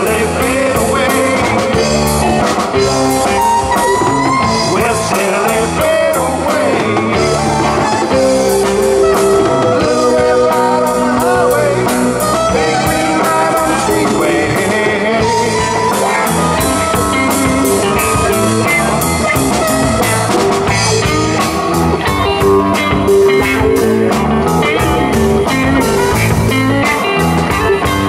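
Live blues-rock band playing an instrumental passage: electric guitars with sliding, bending notes over bass and a steady drum beat.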